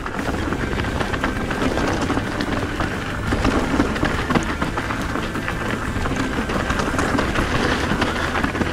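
Mountain bike rolling over a stony trail: the tyres run over rocks, and the bike rattles with many small knocks and clicks.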